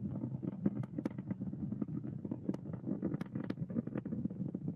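Falcon 9 first stage, its nine Merlin 1D engines firing in ascent, heard as a steady low rumble peppered with sharp irregular crackling.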